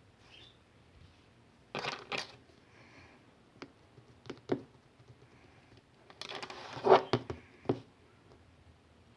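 Short rustles and sharp clicks, as of objects being handled. There is a pair about two seconds in, a few single clicks, and a longer cluster of rustling and clicks around seven seconds in.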